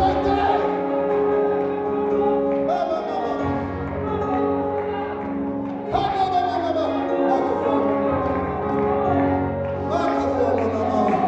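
Church worship music: a steady keyboard or organ-like pad holding chords, with voices singing over it.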